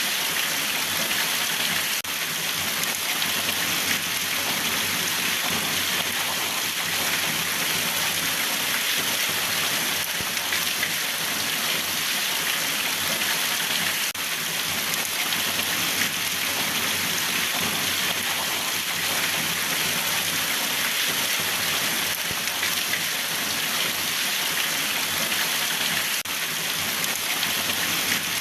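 Steady rain falling, an even hiss of many drops that neither builds nor fades, with no thunder.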